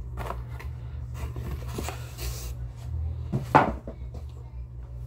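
Fabric of a T-shirt rustling as it is unfolded and shaken out by hand, with one louder, sharper flap about three and a half seconds in. A steady low hum runs underneath.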